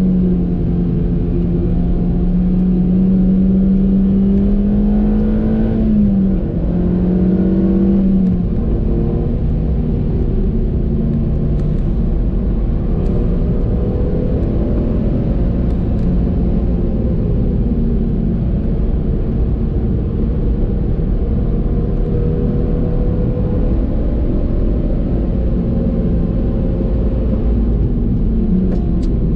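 Onboard sound of a 2014 Suzuki Swift Sport's stock 1.6-litre four-cylinder engine, heard from the cabin over continuous road and wind noise. The engine note climbs slowly, drops sharply about six seconds in and again about eight seconds in, then holds lower and steadier, with another dip near the end.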